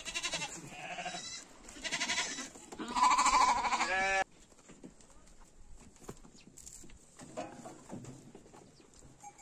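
Goats bleating: three calls in quick succession, the third the loudest and longest, cut off abruptly about four seconds in. A single faint bleat follows later.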